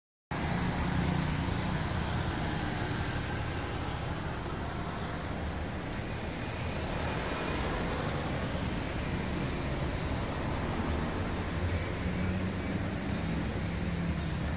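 Steady road traffic noise with a low engine hum.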